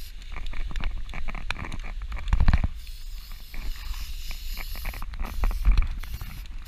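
Aerosol spray-paint can hissing in short bursts as white primer coats a plastic duck decoy. Two low rumbles on the microphone, one a little over two seconds in and one near the end, are the loudest sounds.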